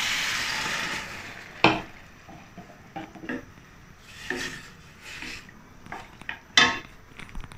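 Chicken stock poured into a hot stainless steel pan of sautéed carrot and leek, sizzling briefly for about the first second, then a wooden spatula stirring and knocking against the pan, with a sharp knock near two seconds in and another, the loudest, near the end.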